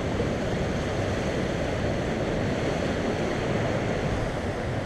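Steady rush of fast-flowing river water below a dam, with some wind on the microphone.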